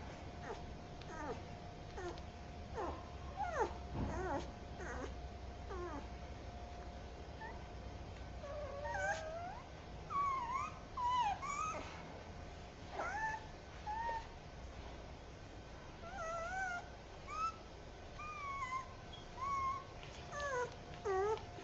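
Puppy crying, slowed down so its whines are drawn out and lowered in pitch: a long run of short whimpers that bend up and down, falling sweeps at first, then wavering cries from about a third of the way in. A faint steady tone lies underneath.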